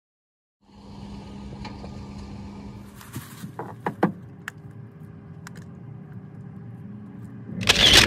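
A car running with a steady hum, starting abruptly just under a second in, with a few sharp clicks and knocks in the middle and a loud burst of noise near the end.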